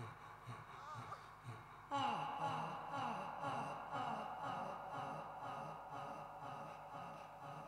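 A man's choked gasps and groans as he is strangled. About two seconds in, a sustained chord of several held tones starts suddenly and carries on under the gasps.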